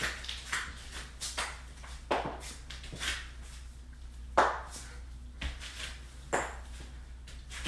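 Joints cracking: a dozen or so sharp pops and cracks at irregular intervals, the loudest about four and a half seconds in, over a faint steady low hum.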